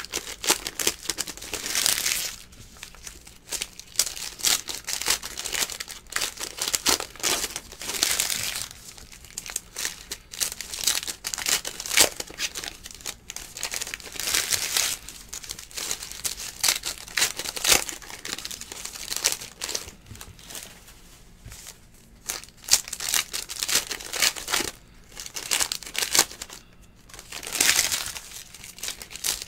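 Plastic wrapping on trading card packs being torn open and crinkled by hand, in irregular bursts with short lulls.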